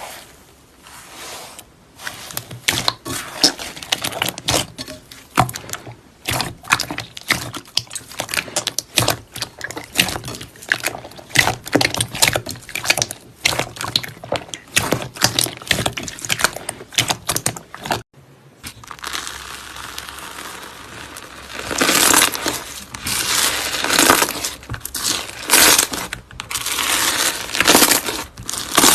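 Slime being squeezed and pressed by hand, giving a dense run of sharp crackles and popping clicks. After a brief break about two-thirds of the way through, the crackling comes in louder, bunched bursts.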